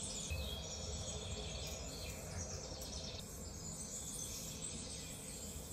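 Birds chirping and insects trilling over a steady low background hum.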